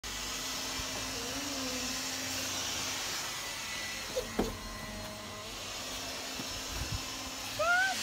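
A Leifheit Dry & Clean cordless window vacuum running steadily over a glass door pane, with a motor whir and a hiss. Two sharp clicks come a little after four seconds, and a short rising whistle comes near the end.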